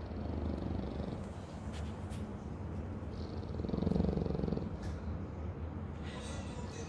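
French bulldog snoring: a low, rattling breath that swells into a louder, longer snore about four seconds in.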